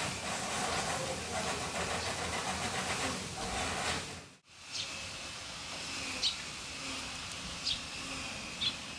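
Steady hissing background noise, then after a break a quieter outdoor ambience in which a small bird chirps briefly a few times.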